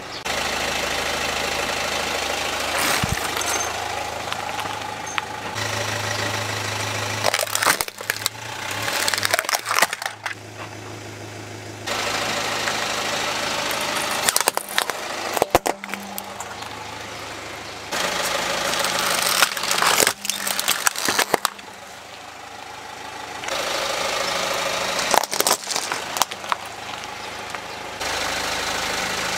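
A car engine idling while a tyre rolls onto hard plastic toys and crushes them, with clusters of sharp cracking and snapping plastic, several times over.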